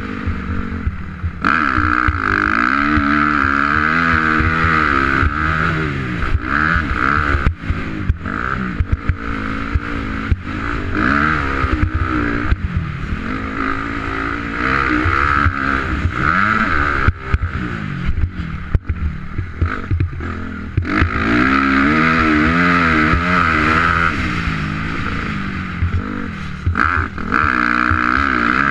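2004 Honda CRF250R's four-stroke single-cylinder engine running hard around a dirt motocross track, its pitch rising and falling over and over as the throttle is opened and shut through the corners and gear changes.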